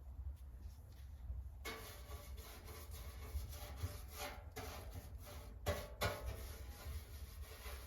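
Paintbrush brushing paint onto a metal fuel tank: soft, repeated rubbing strokes that begin about a second and a half in.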